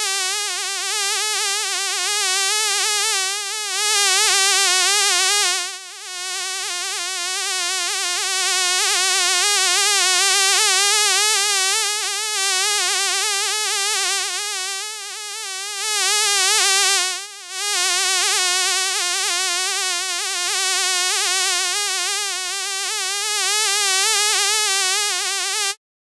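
A fly buzzing steadily, its high buzz wavering quickly in pitch, with two brief dips in loudness; the buzz cuts off suddenly near the end.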